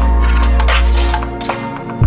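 Background music with a deep held bass note and drum hits.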